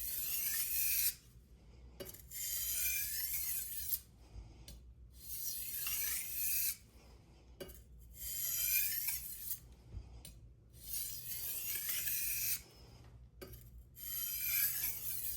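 A kitchen knife blade being drawn across a sharpening stone in about six slow, scraping strokes with short pauses between them. These strokes deburr the edge, taking off the burr left from sharpening.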